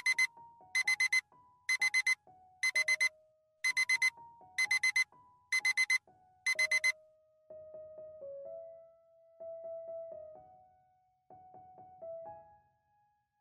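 Smartphone alarm beeping in quick groups of four, about once a second, over a soft piano melody. The beeping stops about seven seconds in, and the piano carries on alone.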